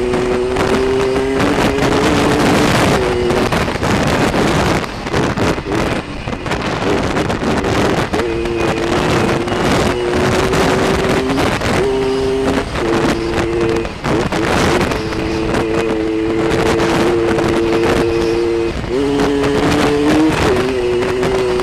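Kawasaki KDX80's two-stroke single-cylinder engine running hard under way. Its note holds steady and then steps up or down in pitch several times. Wind buffets the microphone throughout.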